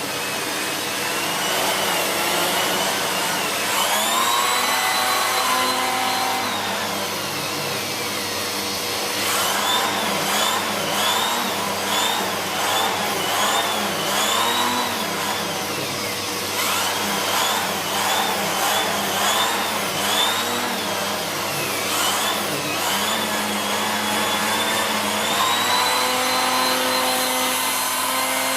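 Siemens Z6.0 Power 2500 W bagged cylinder vacuum cleaner running, its mini turbo brush worked back and forth over a fabric chair. The high whine of the suction rises and falls with each stroke, about once a second at times, over a steady motor hum.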